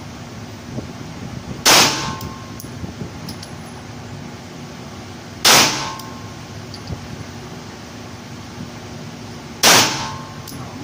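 Three single pistol shots from a semi-automatic handgun, spaced roughly four seconds apart, each echoing briefly in the indoor range.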